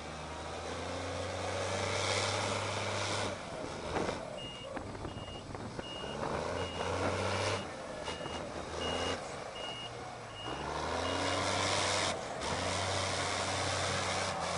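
HBM 160 TA motor grader's diesel engine running as it manoeuvres, its note shifting up and down. Midway, its reversing alarm beeps about eleven times, roughly three beeps every two seconds, and there are surges of rushing noise near the start and near the end.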